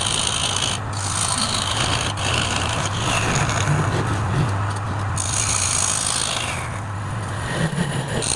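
Wood lathe running with a steady motor hum, under a hissing scrape of a turning tool on the spinning workpiece that breaks off briefly several times.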